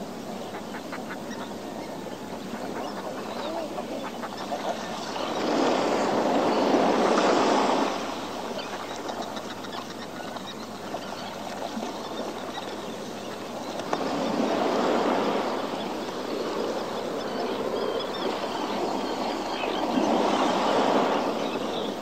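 Sea waves washing in on a rocky shore below cliffs. A steady rush of water swells louder three times, about every six or seven seconds, as each wave breaks and surges over the rocks.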